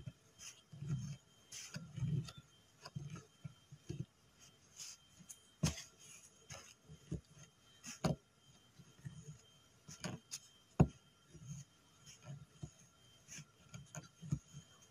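Faint handling sounds of green thread being wound onto an embroidery needle against fabric to form a cast-on stitch: soft rubbing thuds about once or twice a second, one for each wrap, with a few sharp clicks, the loudest about eleven seconds in.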